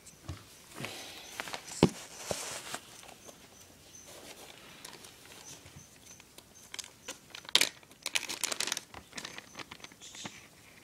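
Thin plastic bags crinkling and crackling as hands open them and pull out bunches of live aquarium plants. The crackles come in irregular spells, loudest about two seconds in and again in a busy run about three-quarters of the way through.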